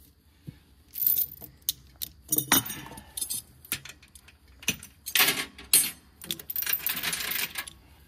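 Metal chain links jingling and clinking in irregular bursts, several clusters of rattling.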